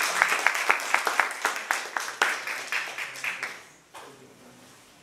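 Audience applauding, the clapping thinning out and dying away after about three and a half seconds.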